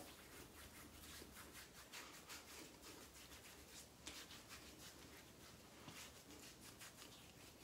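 Near silence, with faint soft rubbing and patting of hands on skin as aftershave is worked into the face and neck.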